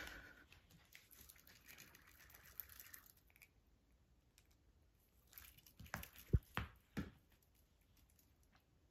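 Faint scratchy rustling as a cat claws and bites at a feather wand toy on a rug, lasting about three seconds. About five and a half seconds in comes a quick cluster of soft knocks and clicks, the loudest a little over six seconds in.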